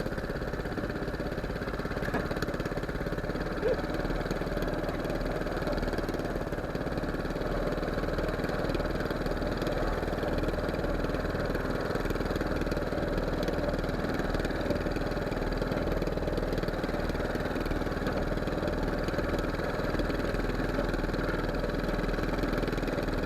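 Fishing boat's engine running steadily at an even pace, with one brief knock about four seconds in.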